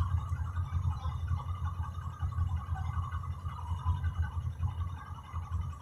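Low, steady rumble of a city bus's engine and road noise, heard from inside the cabin while the bus moves.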